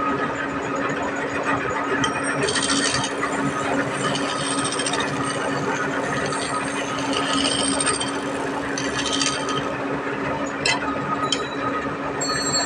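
A woodworking machine running with a steady hum, with intermittent high scraping as it works the wood and two sharp clicks near the end.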